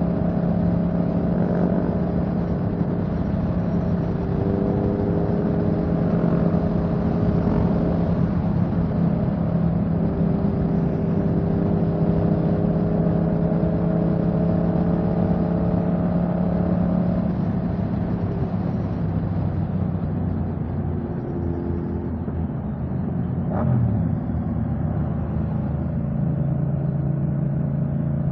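Motorcycle engine running at a steady cruise, with wind rushing over the microphone. About two-thirds of the way in the engine note drops and settles at a lower steady pitch, with a brief click just before it settles.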